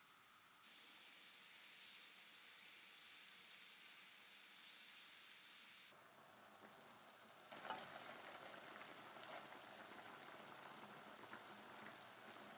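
Food frying in hot oil in a pan, a steady sizzle that changes abruptly about half a second, six and seven and a half seconds in as the shots cut.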